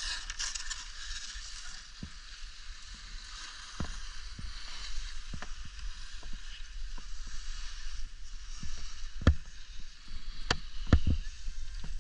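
Edges hissing and scraping over snow during a run down the slope, with a low wind rumble on the microphone. A few sharp knocks come through, louder near the end.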